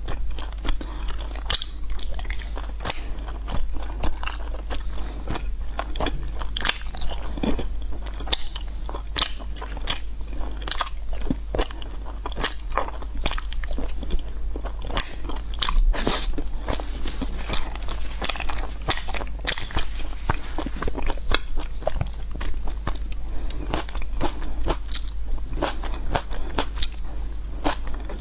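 Close-miked eating: crunchy bites and chewing, a rapid irregular run of crisp crackles and crunches, over a steady low hum.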